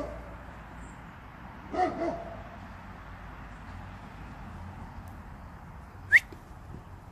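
German Shepherd dog barking, a quick double bark about two seconds in. Near the end comes a single short, loud, high squeak that rises in pitch.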